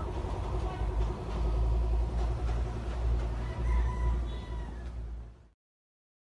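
Philippine National Railways train rumbling along the track, with a rooster crowing over it about three and a half seconds in. The sound cuts off suddenly about five and a half seconds in.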